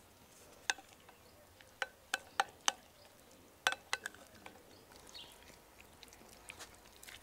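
Hands rubbing a thick sour-cream-and-mustard marinade into a raw pig's head. A run of sharp wet smacks comes in the first four seconds, then softer squelching and smearing.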